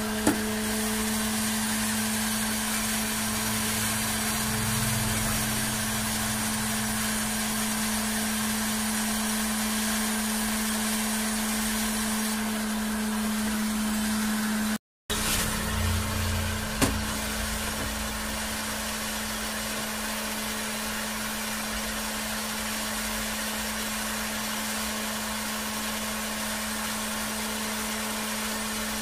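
Electric LED-rework hot plate running, a steady hum with an even hiss underneath. The sound cuts out for a moment about halfway, and a small click comes shortly after.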